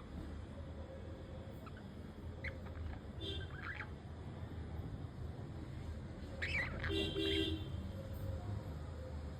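Pet budgerigars giving a few short chirps and scratchy calls while preening each other, with the loudest pair of calls about two-thirds of the way in, over a steady low hum.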